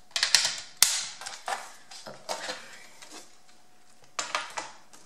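A square of scored scrapbook paper being picked up and handled: a run of sharp paper crackles and taps, the loudest about a second in, with another cluster a little after four seconds.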